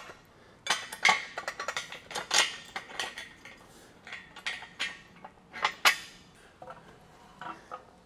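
Steel yoke-rack parts and hardware (washers, nuts, bolts, steel tubes) being handled: an irregular string of sharp metallic clinks and clanks, some ringing briefly.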